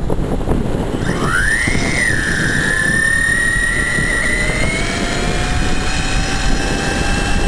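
Whine of an electric bike's Astroflight RC motor and belt reduction drive: it rises quickly in pitch about a second in as the motor pulls, then holds nearly steady at cruising speed. Wind rushes on the microphone underneath.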